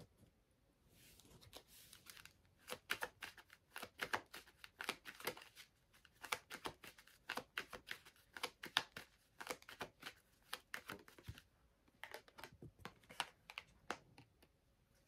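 Tarot cards being shuffled and handled in the hands: quick runs of dry card flicks and clicks, pausing briefly near the end as a card is drawn and laid down.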